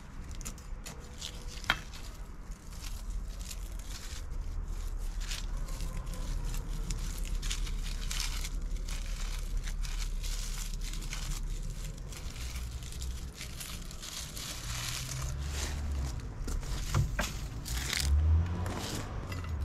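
Hands working through garden plants and debris: irregular rustling, crinkling and crackling with scattered snaps, a sharp click about two seconds in and a low thud near the end.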